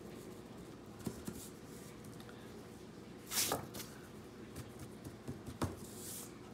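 Quiet rubbing and tapping of fingers on a paper-faced card model, with one louder brushing sweep about three and a half seconds in and a sharp tap near the end as the card is handled.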